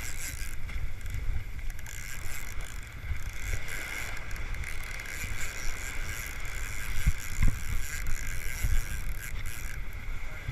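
Wind buffeting the camera microphone over surf washing at the waterline, with a few short knocks about seven seconds in.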